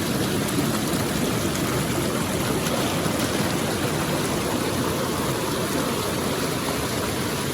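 Steady rush of fast-flowing water over rapids or a waterfall, an even roar at a constant level.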